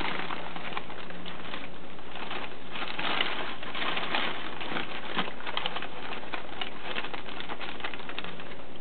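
Crumpled brown kraft packing paper rustling and crackling as it is pulled out of a cardboard box, with packing peanuts shifting among it.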